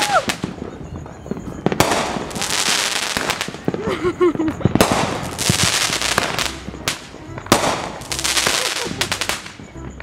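Aerial fireworks bursting overhead with crackling stars: three sharp bursts about three seconds apart, each followed by a second or two of dense crackling.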